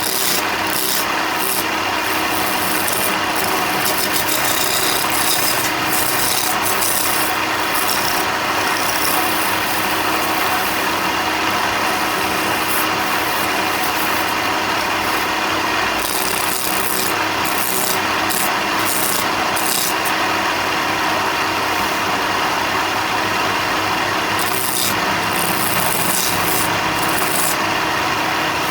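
Power tool abrading wood, a continuous rasping rub over a steady motor whine.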